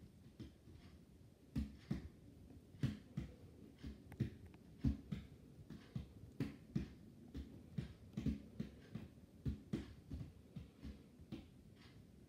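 Irregular soft thumps and taps, about one or two a second, over a faint room hum.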